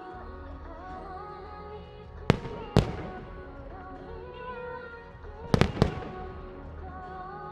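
Aerial firework shells bursting in sharp bangs, two a half-second apart a little after two seconds in, then a quick run of three near the end, over a pop song accompanying the display.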